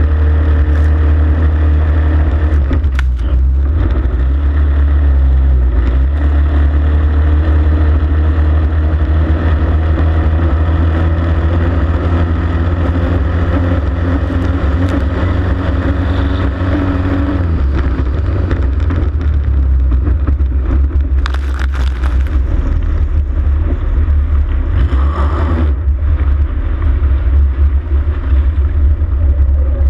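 Racing hydroplane's engine running flat out at a steady pitch, heard from on board. About two-thirds through, the engine note drops as the throttle comes off and the boat slows, leaving a rough rush of wind and water.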